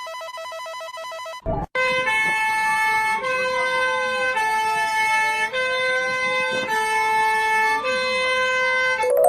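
Electronic alarm sound effect. A pulsed, warbling ringtone-like beep cuts off with a click about a second and a half in. It gives way to a loud synthesized siren, one tone sliding down and back up over held electronic chords that change roughly every second.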